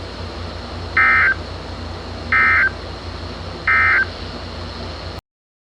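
NOAA Weather Radio's SAME End of Message data: three short, identical bursts of digital warble about a second and a half apart, marking the close of the alert, over a steady low hum. The audio cuts off abruptly about five seconds in.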